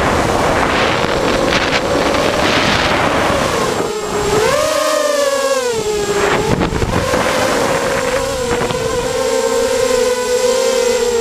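Multirotor drone's electric motors and propellers whining steadily, heard through a camera mounted on the drone's frame, with gusts of wind on the microphone. The pitch dips just before the middle, surges up and then slides back down as the throttle changes.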